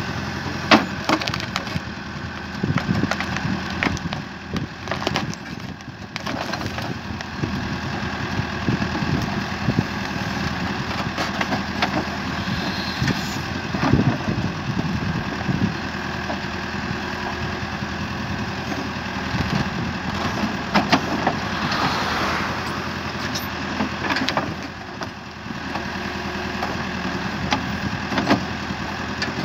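Caterpillar 428C backhoe loader's diesel engine running steadily while the backhoe bucket digs and levers at a large poplar stump, with scattered sharp cracks and knocks from roots, wood and soil throughout.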